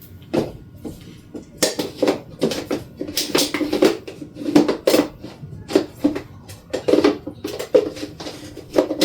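Hard plastic parts of a cordless vacuum's filter housing and dust cup being handled and twisted back together: a run of irregular clicks, knocks and rattles.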